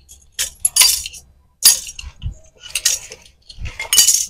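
Metal hand tools and small metal parts clinking and rattling as they are handled on the floor: several short, irregular clatters, the loudest near the middle and near the end.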